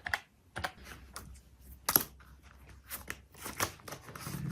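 Scattered sharp clicks and taps of small things being handled, the loudest about two seconds in. Near the end a low, steady stomach rumble sets in.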